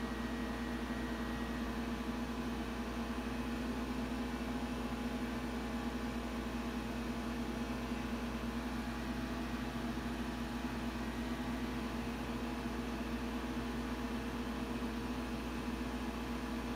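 Tektronix 555 dual-beam tube oscilloscope switched on: a steady electrical hum with an even, fan-like hiss that holds unchanged.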